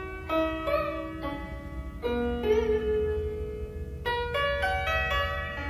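Solo Chinese zheng with 16 steel strings, plucked in a melody of single ringing notes. Several notes bend in pitch after they are plucked. A steady low hum runs underneath.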